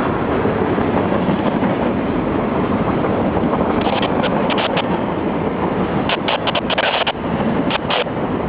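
A freight train's cars rolling past at close range: a steady, loud rumble and rattle of steel wheels on rail, broken by clusters of short, sharp high-pitched squeals and clanks about halfway through and near the end.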